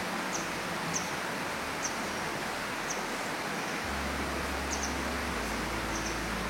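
A steady rushing noise outdoors, with short high-pitched bird chirps every second or so.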